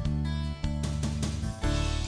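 Instrumental music with a steady beat.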